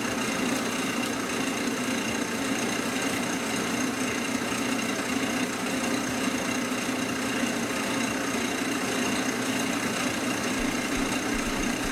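Wood lathe running at a constant speed, spinning a painted canvas, its motor giving a steady hum with a thin high whine above it.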